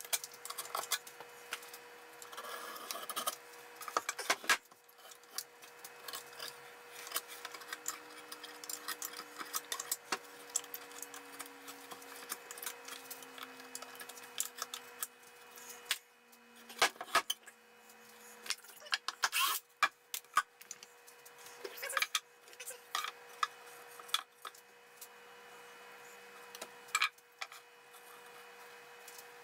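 Wooden pallet parts being handled on a workbench: irregular knocks and clatters of pine boards and the plywood deck being moved and set down, with scraping and rubbing of wood between them.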